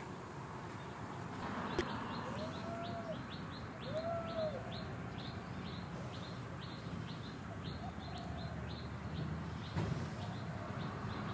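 A bird chirping over and over, short high chirps at about three a second, with two short rising-and-falling calls about two and four seconds in, over a steady low outdoor hum.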